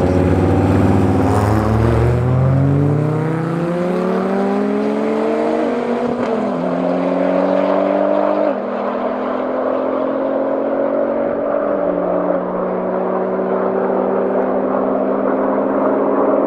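A tuned 640 hp Nissan GT-R's twin-turbo V6 and a Dodge Viper launching side by side in a drag race. The engines hold steady revs for about two seconds, then climb in pitch and drop back at each upshift, about five gear changes in all, growing more distant as the cars accelerate away.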